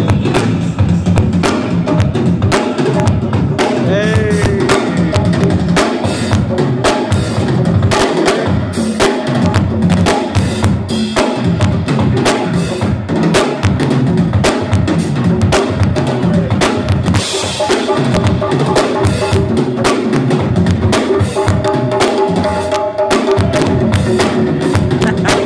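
Live funk band playing, with the drum kit and conga drums driving a busy groove; sustained held chords come in over it near the end.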